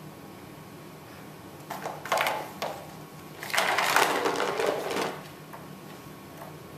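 Round cat track toy with a ball in its plastic ring, rattling as a cat paws at it, in two bursts: a short one about two seconds in and a longer one of about a second and a half midway.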